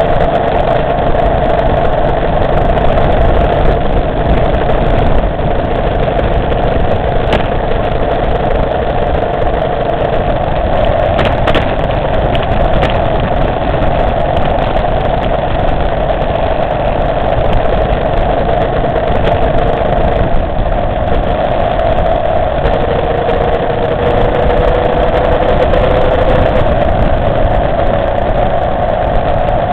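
Motorcycle engine running at a steady cruising pace, under continuous wind and road noise, heard from on board the moving bike.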